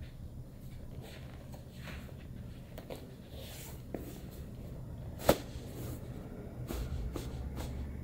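Quiet handling of a patient on a treatment table: faint rustling of hands and clothing over a low room hum, with one sharp click a little over five seconds in and a smaller one shortly before it.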